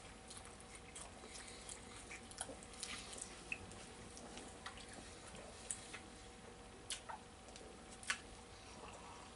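Quiet chewing and mouth sounds of people eating pizza, with scattered small clicks and smacks, a few sharper ones in the second half, over a faint steady hum.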